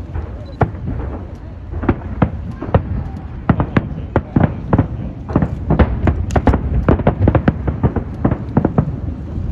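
Aerial fireworks bursting: many sharp bangs in irregular quick succession, growing denser from about three seconds in, over a steady low rumble.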